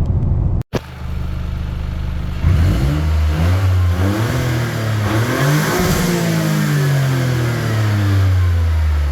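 Toyota GR Corolla's turbocharged 1.6-litre three-cylinder engine heard from inside the cabin with the windows up, on its stock air filter. The engine runs steadily, then the revs climb hard from about two and a half seconds in, dip briefly, climb again, and fall away slowly near the end.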